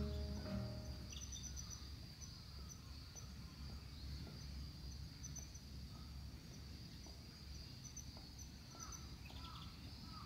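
Faint outdoor street ambience: a steady high-pitched trill with low rumble underneath, and a few short chirps near the end. Background music fades out in the first second.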